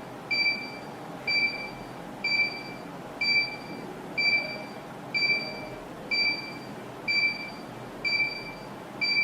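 Active 108 burglar alarm panel's buzzer beeping at one steady high pitch, about once a second, each beep about half a second long: the panel alarming after zone 1 was triggered in night mode.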